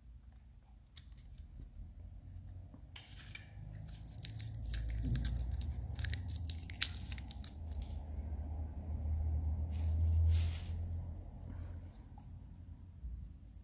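Small metal engine parts being handled and fitted by hand: a run of light clicks and scrapes as the piston, wrist pin and needle bearing go onto the connecting rod of a small scooter engine. A low rumble swells under the clicks through the middle of the stretch.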